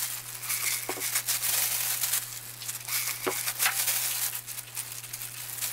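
Thin disposable plastic gloves crinkling and rustling as gloved hands pull sticky dough apart and shape it into balls, with small crackles and soft pats as the pieces are set in flour.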